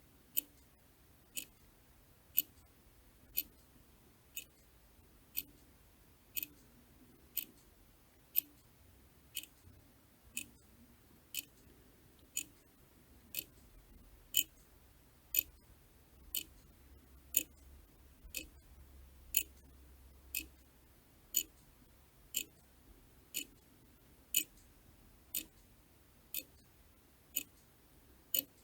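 A clock ticking steadily, one tick a second, some ticks louder than others.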